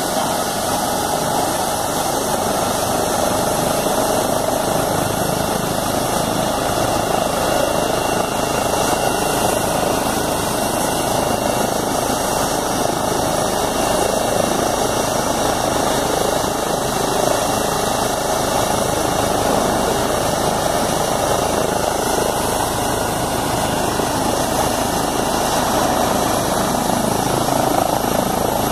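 Eurocopter EC135 air ambulance helicopter running on the ground with its main rotor turning: a loud, steady rotor rush with a high turbine whine over it.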